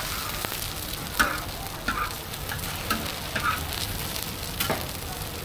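Egg-coated sanxian doupi (bean-skin batter) sizzling steadily on a large flat griddle pan, with a few short clinks and taps from the metal spatula as the cook works the skin.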